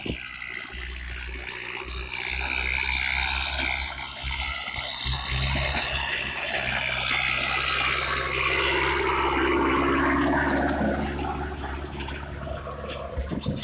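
Tractor engine running steadily under load while its disc harrow cuts through dry soil with a broad rushing, hissing noise. The rushing swells through the middle as the tractor comes close, then eases near the end.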